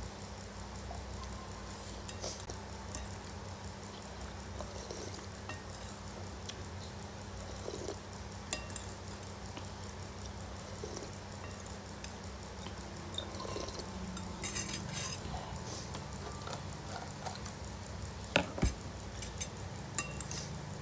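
Cutlery clinking and scraping against a bowl while eating instant noodles, with scattered short sharp clicks. There is a brief cluster of louder hissy sounds about two-thirds of the way through.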